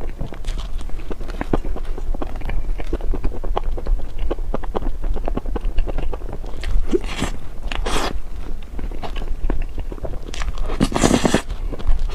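Close-miked eating: a steady run of chewing and wet mouth clicks, with a few louder crunching bites about seven, eight and eleven seconds in, typical of crisp dessert pieces being bitten.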